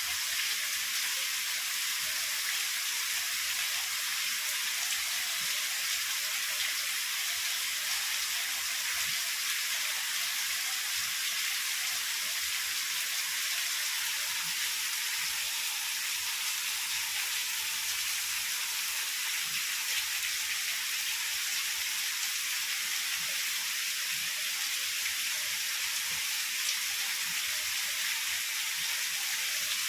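Heavy rain falling steadily: an even, unbroken hiss of downpour with faint scattered drop ticks.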